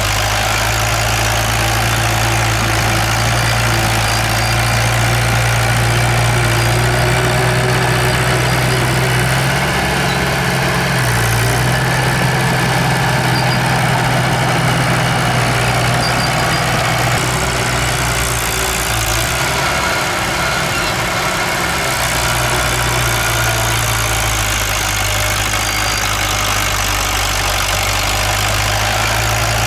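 Diesel engine of a heavy earthmoving machine running steadily, its note shifting twice, about a third of the way in and again about two-thirds of the way in.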